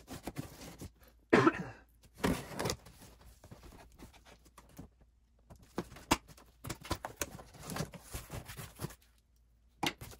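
Packing tape being slit and pulled off a cardboard box, then the box flaps being folded open: scrapes, rips and rustles of tape and cardboard. There is a loud short burst about a second in and another just after two seconds, then a run of small clicks and scrapes.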